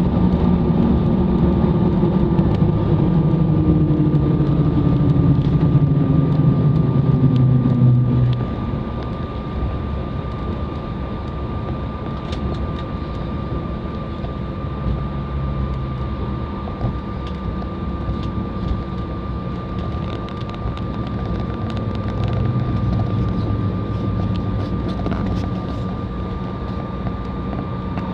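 Airliner engines heard from inside the cabin after touchdown, winding down with a falling pitch over the first eight seconds. The engines then settle into a steadier, lower rumble with a thin constant whine as the aircraft rolls out.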